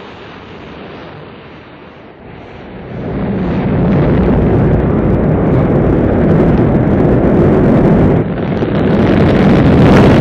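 Rocket launch roar: the noisy roar of rocket engines, moderate at first, swelling about three seconds in and staying loud, with a brief dip and a rise again near the end.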